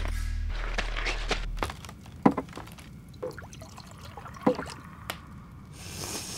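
Coffee poured from an enamel pot into an enamel mug, with sharp knocks and clinks of the enamelware. A hissing pour near the end.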